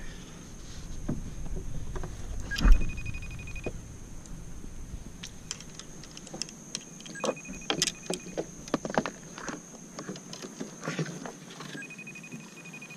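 A phone ringing out on a FaceTime call: a short pulsed tone that comes three times, about every four and a half seconds. Around it, clicks and knocks of gear being handled in a plastic kayak, with one loud knock about three seconds in.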